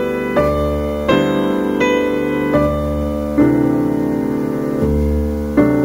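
Slow piano music: sustained chords, a new one struck about every second.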